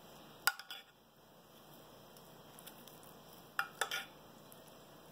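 A few light clicks of a metal spoon while spooning pineapple syrup over a sponge cake layer: a pair about half a second in and a quick cluster of three shortly before four seconds, over faint room tone.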